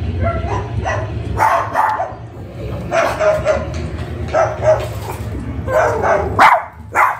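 A white cockatoo mimicking a dog's bark, played back through computer speakers over a steady low hum: a string of short barks, one or two a second. Near the end the hum drops away and a sharper bark follows.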